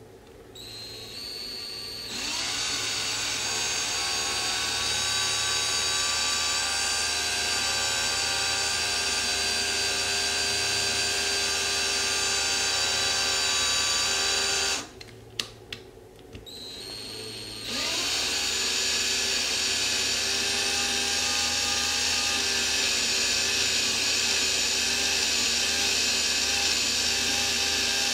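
Cordless drill turning a thread tap into the stripped screw hole of a metal electrical box, to cut new threads. The motor runs with a steady whine, building up over the first two seconds. It stops for about three seconds near the middle, with a few clicks, then spins up again and keeps running.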